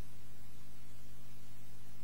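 Steady low electrical hum with an even hiss over it, and no distinct handling sounds from the hose being disconnected.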